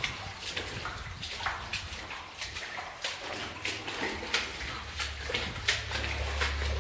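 Footsteps splashing through shallow water on a mine tunnel floor, irregular steps about two a second. A low rumble starts near the end.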